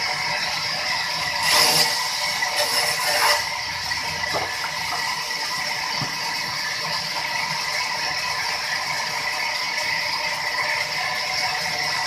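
Sawmill's large band saw running with a steady, even whine, under mechanical rattling and clatter; louder clattering knocks come about one and a half and three seconds in.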